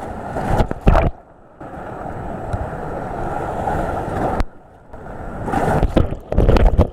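Whitewater crashing over and around a raft as it surfs a river hole, with heavy splashes on the chest-mounted camera about a second in and again near the end. The rushing cuts out abruptly twice for a moment.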